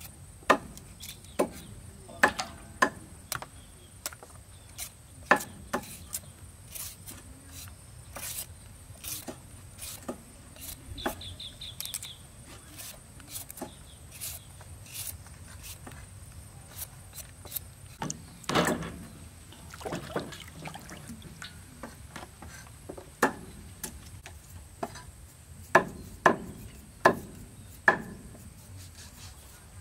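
Sweet potatoes being peeled with a metal hand peeler: irregular light scraping strokes and small clicks. Near the end a cleaver chops chicken feet on a wooden chopping block in a run of sharp, loud knocks.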